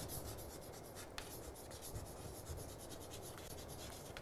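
Chalk writing on a chalkboard: faint, rapid scratching strokes and taps of the chalk forming letters.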